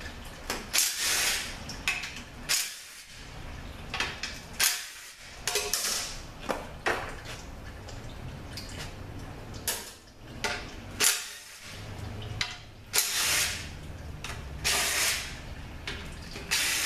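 Cordless driver spinning out transmission oil pan bolts, running in short bursts of about half a second, several times, with pauses between.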